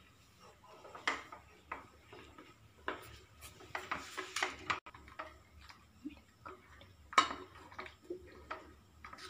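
White plastic spoon stirring grated soap in boiling water in a stainless steel bowl, scraping and knocking irregularly against the bowl. The loudest knocks come about a second in, around three seconds, and about seven seconds in.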